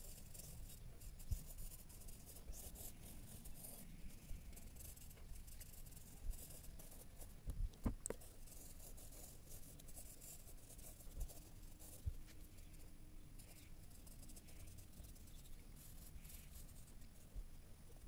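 Pencil scratching and rubbing on sketchbook paper in rapid shading strokes, faint, coming thick and fast at first and more sparsely later. A couple of soft thumps just before the 8-second mark.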